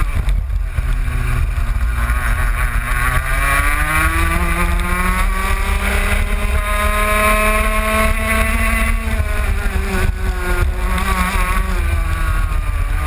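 Racing kart engine heard onboard under hard driving: revs sit low for the first few seconds, climb steadily for about five seconds along a straight, drop back sharply for the next corner and start rising again near the end.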